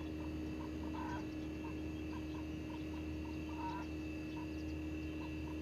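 A small animal calling in short, evenly spaced chirps, about three a second, with a couple of louder calls among them, over a steady background hum.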